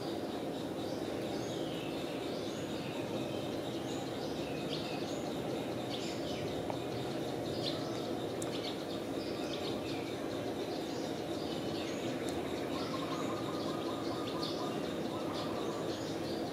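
Outdoor ambience: a steady background hum with small birds chirping faintly now and then.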